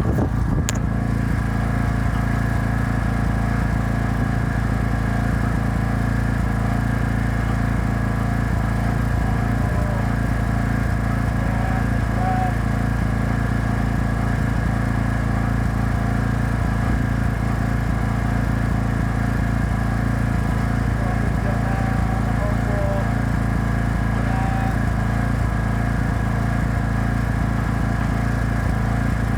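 Portable generator's small engine running steadily at an even pitch.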